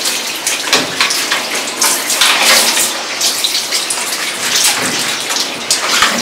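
Shower water running and splashing as a cat is washed in a grooming tub: a steady rush of water with irregular splashes.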